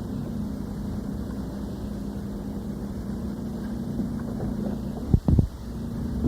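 Steady low hum and hiss of an old lecture recording between words, with a couple of sharp, loud low thumps a little after five seconds in.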